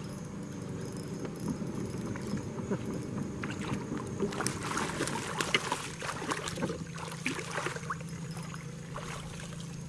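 Water sloshing against a kayak hull, with a steady low hum and many small scattered clicks and knocks, busiest in the middle.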